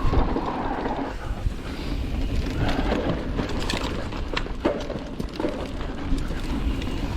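Mountain bike riding fast on a dirt trail: a steady rumble of tyres and wind with scattered clicks and knocks as the bike rattles over rough ground.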